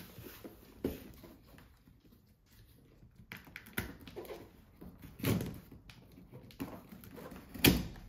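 Scissors slitting packing tape along a cardboard box, with irregular snips, scrapes and rustles of cardboard; the loudest crackle comes near the end.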